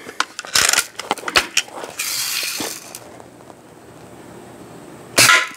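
Daisy Red Ryder lever-action BB gun handled and cocked, with a string of sharp metallic clicks in the first second or so. Near the end it fires one loud, sharp shot.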